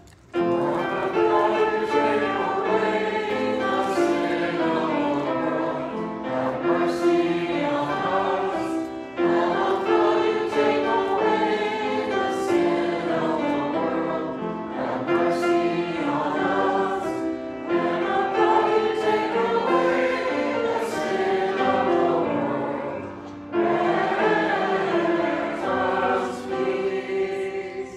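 A group of voices singing a hymn together with keyboard accompaniment, in long held notes broken into phrases.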